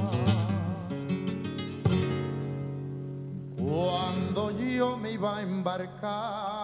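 Live male singing with flamenco-style Spanish guitar accompaniment: a strummed guitar chord at the start and another about two seconds in, left to ring, then the voice comes back about three and a half seconds in with long held notes sung with a wide vibrato.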